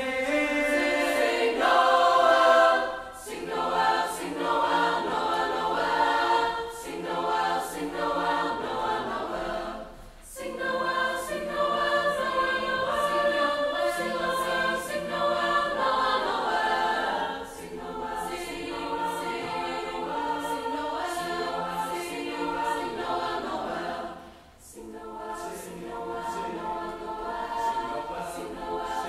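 Mixed choir of young men and women singing in parts, the phrases broken by short pauses about three, ten and twenty-four seconds in.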